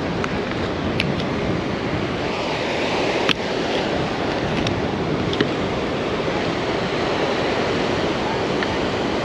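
Steady surf and wind noise on the microphone, with a few sharp clicks, the sharpest about three seconds in.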